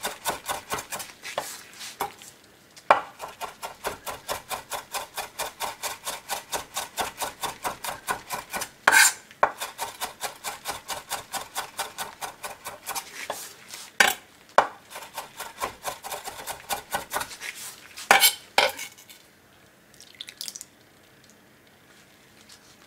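Broad rectangular kitchen knife rapidly chopping green onion on a wooden cutting board, a steady run of about five knocks a second with a few louder knocks mixed in. The chopping stops about 19 seconds in.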